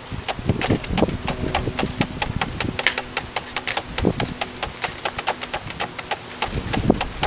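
Rapid, irregular dry clicking and clacking, several clicks a second, over a faint steady hum.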